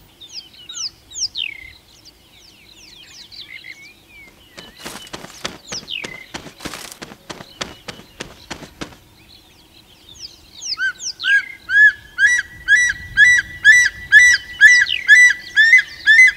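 Juvenile martial eagle calling: a loud series of high whistled notes, each rising at its start, about two a second, beginning about eleven seconds in. Before that come thin falling chirps and a run of soft wing flaps as the eagle spreads its wings.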